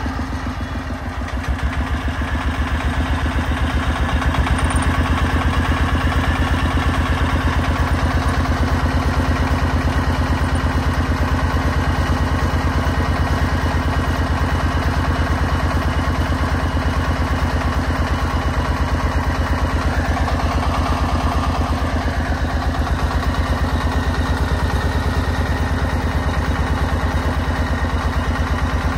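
Công nông three-wheeled farm dump truck's 36-horsepower diesel engine running with a steady, rapid chugging beat, picking up a little about two seconds in as it moves the load of soil and raises the dump bed.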